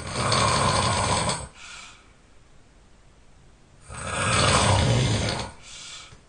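A person snoring loudly, with two long snores about four seconds apart. Each snore is followed by a short, quieter tail.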